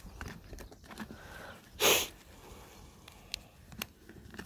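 A person sniffing once, a short sharp breath in through the nose, about two seconds in. Around it, faint clicks and ticks of small fishing tackle being handled.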